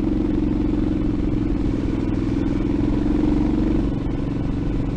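Predator 301cc single-cylinder four-stroke engine on a mini bike running steadily under way at cruising speed. It eases off slightly about four seconds in.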